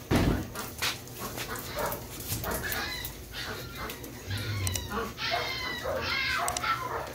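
A pack of dogs in a kennel whining, yelping and barking, with many short high calls overlapping from a few seconds in. A loud thump right at the start.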